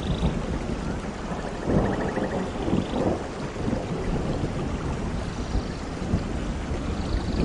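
Steady rain falling, with thunder rumbling low underneath and swelling briefly about two seconds in.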